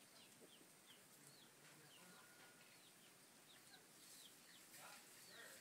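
Near silence with faint, short, high chirps repeating a couple of times a second: a small bird calling.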